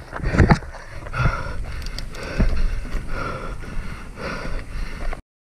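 Rough rumble and clatter of a hardtail mountain bike moving over rocky ground, with scattered knocks and the rider breathing hard in a repeating rhythm. The sound cuts off abruptly about five seconds in.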